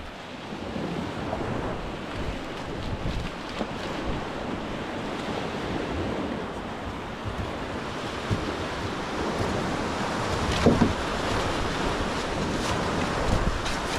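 Surf breaking on a beach, with wind buffeting the microphone. A couple of short knocks about ten seconds in.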